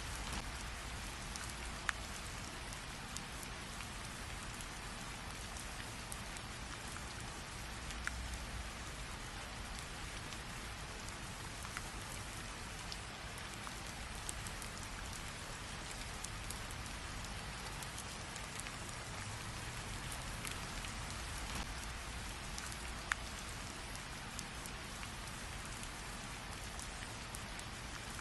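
Steady rain falling, an even hiss of many drops with a few louder single drops standing out now and then.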